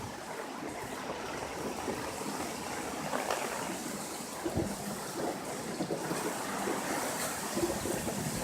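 Hurricane rain and wind: a steady, even hiss of heavy rain and gusting wind, with a couple of faint knocks.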